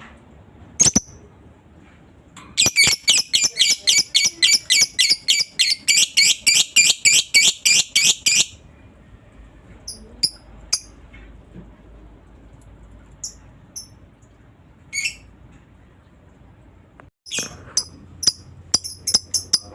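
Lovebird singing its 'ngekek': a long run of rapid, high, harsh chirps, about five a second for some six seconds, followed by scattered single chirps.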